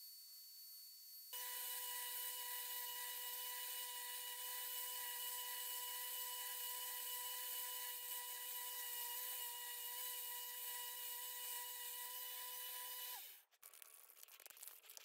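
Small 1x30 belt grinder running with a steady whine and the hiss of the belt sanding the wooden handle of a knife. It starts abruptly just over a second in, then cuts off with a brief drop in pitch about thirteen seconds in, followed by faint handling rustle.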